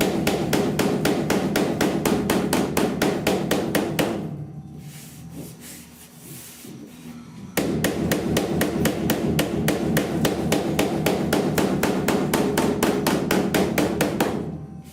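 Body hammer tapping the welded-in sheet-metal inner roof patch panel of a 1969 C10, a fast, even run of about five ringing metal strikes a second, working out a puckered low spot. The strikes stop about four seconds in and resume after a pause of three to four seconds.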